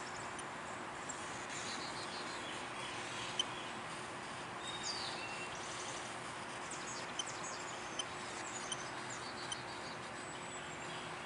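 Outdoor ambience: a steady background hiss with scattered short bird chirps and whistles, and a few faint clicks.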